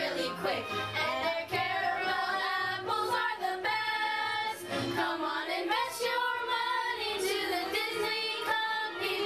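A group of young women singing a song together in unison, with long held notes.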